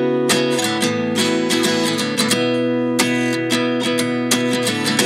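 Background music: acoustic guitar strumming and picking a steady rhythm.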